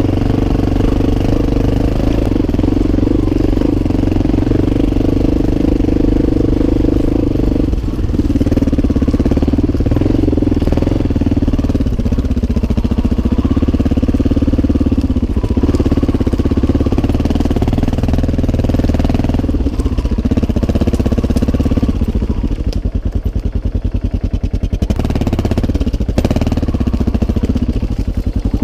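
Enduro motorcycle engine running as the bike is ridden along a forest trail, its pitch rising and falling with the throttle. For a few seconds near the end the revs drop to a slow, low chug.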